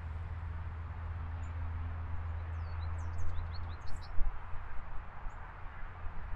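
Steady rumble of distant highway traffic, with a few quick, high bird chirps about three to four seconds in.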